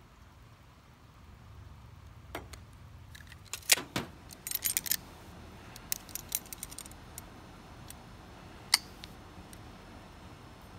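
Metal hand tools clinking and clicking as they are handled on a tabletop, then locking pliers being worked onto a strip of sheet metal. The loudest clatter comes about four seconds in, and a single sharp click comes near the end.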